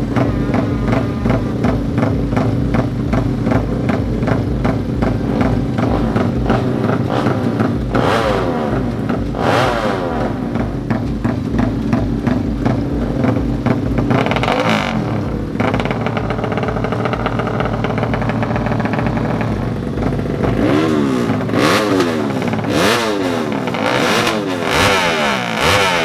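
Yamaha MX King drag bike's single-cylinder four-stroke engine running at the start line with a choppy, helicopter-like exhaust note, the throttle blipped now and then so the pitch rises and falls. Near the end comes a run of quick throttle blips, the pitch going up and down several times in a row.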